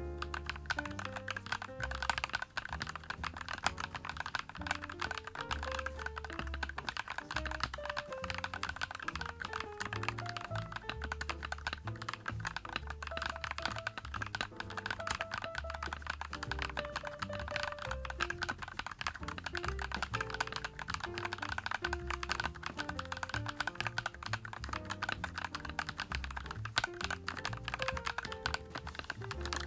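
Continuous fast typing on a YUNZII x Coolkiller CK75 mechanical keyboard, a full-acrylic, gasket-mounted 75% board with silicone sound-dampening pads and KSA-profile keycaps, with dense keystroke clicks throughout. Background music with a bass line plays under the typing.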